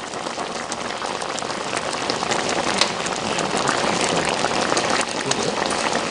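Pot of dumpling soup with clams boiling, the broth bubbling and popping in a dense steady crackle.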